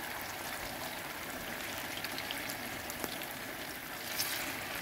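Chicken strips deep-frying in hot oil in a karahi: a steady sizzle with scattered small crackles, a little louder near the end as another battered strip is lowered into the oil.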